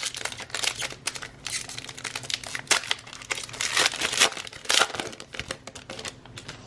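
Plastic wrapper of a trading-card pack crinkling and crackling in irregular bursts as it is handled and torn open.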